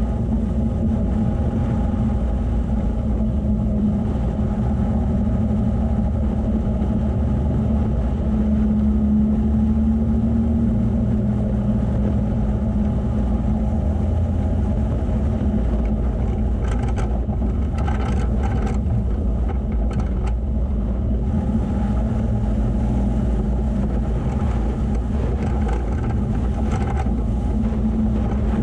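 Vehicle engine running steadily while driving over sand tracks, with a heavy low rumble throughout. A few short knocks or rattles come past the middle.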